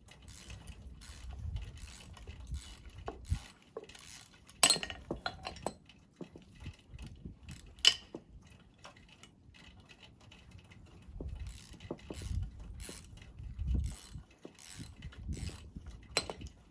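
Hand tools and metal parts clinking and clattering during hands-on disassembly of a rusty ATV's front end. Three sharp metal clanks stand out: about five seconds in, about eight seconds in, and near the end.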